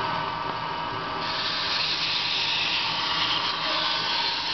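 T8445 brake lathe running with a steady whine while a brake rotor spins on its arbor; from about a second in, a scraping hiss joins it as the cutting tool skims the rotor's surface, stopping near the end.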